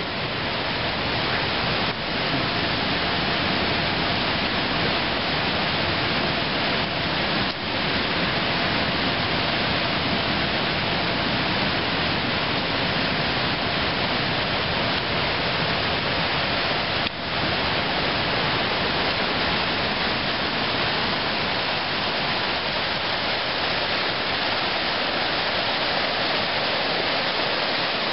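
Mountain creek rushing over rocks and fallen logs: a loud, steady roar of white water.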